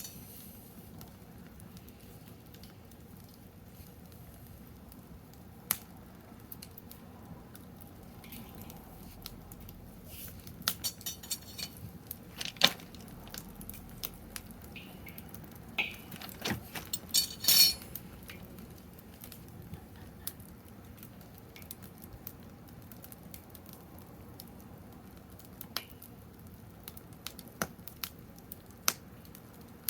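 Small wood fire crackling, with scattered sharp pops and a few denser bursts of crackles around the middle.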